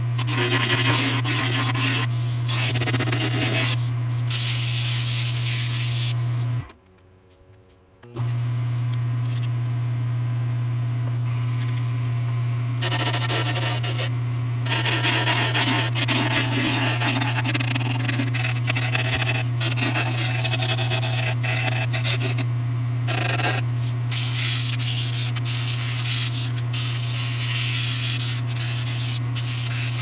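Wood lathe running with a steady motor hum while a hand turning tool scrapes and cuts a spinning Black Walnut wand blank, then sandpaper rubs against the turning wood. The hum and cutting drop out for about a second and a half around seven seconds in.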